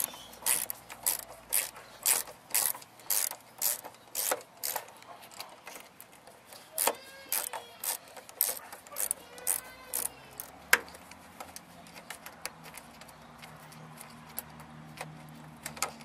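Ratchet wrench clicking in short runs, about two strokes a second, as a 10 mm bolt is undone. The clicks thin out after about ten seconds, with one sharper click after that.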